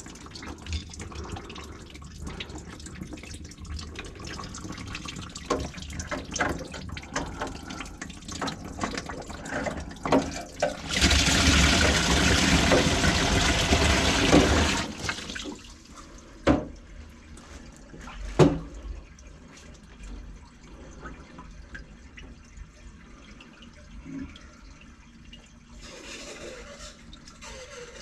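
Water dripping and trickling from a disconnected kitchen sink drain pipe into a plastic bucket, with a steady pour of water into the bucket for about four seconds midway. Two sharp knocks follow shortly after the pour.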